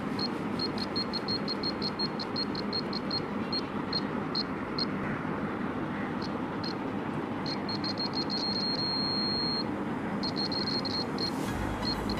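Small piezo buzzer of a homemade earthquake alarm beeping in short, irregular high-pitched bursts as the board is shaken and the hanging nut swings against the contact ring, closing the circuit. About eight seconds in it sounds as one longer unbroken tone, then goes back to broken beeps.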